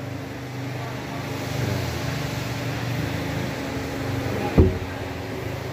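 Steady low mechanical hum with a constant pitch, broken once by a single dull thud about four and a half seconds in.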